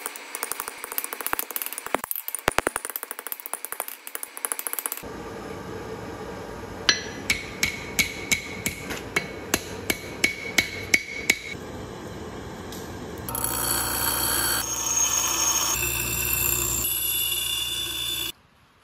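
Hand hammer forging red-hot steel on an anvil: first a quick run of light strikes, then about ten separate ringing blows at a steady pace. Then a bench grinder's wheel grinds the forged steel for about five seconds and cuts off suddenly.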